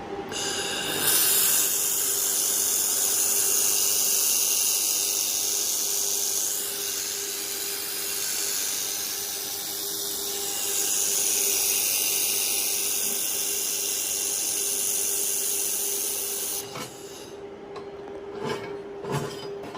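Handheld air-cooled fiber laser welder welding stainless steel with wire feed: a loud, steady hiss starts about a second in and cuts off after about sixteen seconds. Underneath, the machine's air-cooling fan holds a steady hum. A few clicks and knocks follow near the end.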